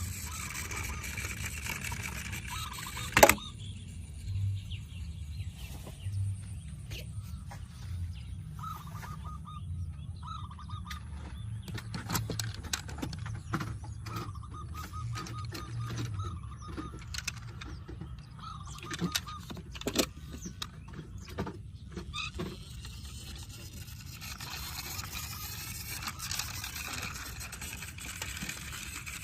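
Diecast toy vehicles being handled: scattered clicks and knocks, with one loud knock about three seconds in, over a low hum, and a high whine that comes and goes in the middle.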